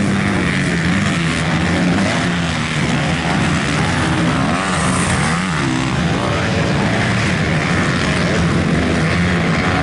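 Motocross dirt bike engines racing on the track, several bikes running at once with their pitch repeatedly rising and falling as they rev through the gears.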